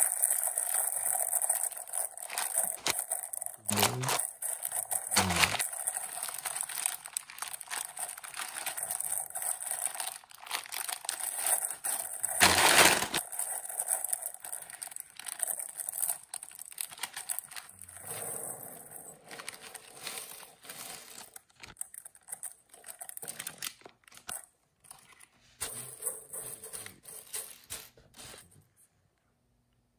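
Clear plastic bag of small plastic building bricks crinkling as it is handled and squeezed, torn open with a loud rip about twelve and a half seconds in. Loose bricks then rattle and clatter onto a wooden tabletop.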